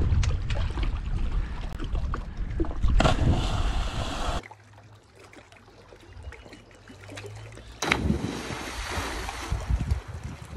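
Wind rumbling on the microphone at the water's edge, then a person jumping off a rock cliff hits the lake water with a loud splash about eight seconds in.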